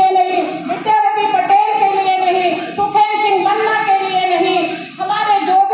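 A high-pitched woman's voice singing through a microphone and loudspeakers, in long held phrases that break about once a second.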